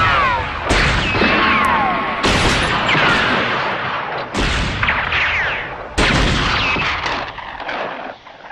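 Spaghetti-western gunshot sound effects: four sharp shots about one and a half to two seconds apart, each followed by falling ricochet whines and a long echoing tail. The sound fades out near the end.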